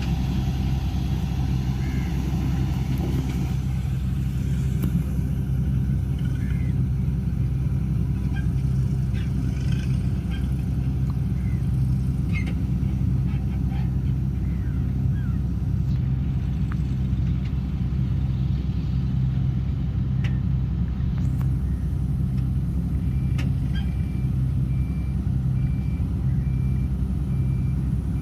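Excavator's diesel engine running steadily, with a few light knocks from the working machine. About 23 seconds in, a reversing alarm starts beeping at an even pace.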